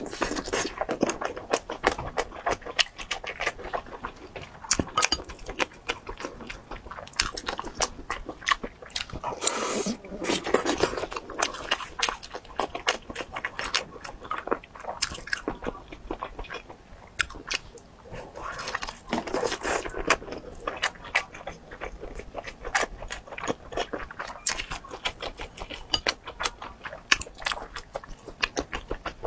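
Close-miked chewing of soft oden skewers soaked in chili oil: many wet mouth clicks and smacks throughout, with two longer, louder stretches of eating about ten and twenty seconds in.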